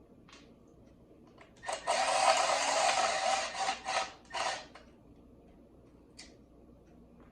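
Wood stick being cut into a small plug piece: harsh rasping noise of wood being cut, starting about two seconds in, lasting about three seconds and breaking into a few short strokes near the end.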